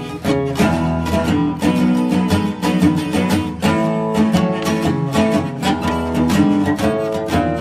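Background music: acoustic guitar, plucked and strummed at a quick, steady pace.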